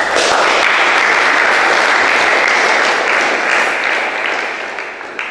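Audience applauding, starting suddenly at full strength and dying away over the last second or so.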